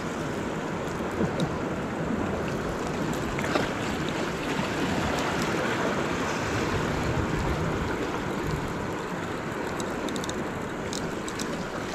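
Steady rushing of ocean surf washing in, an even noise with no distinct events.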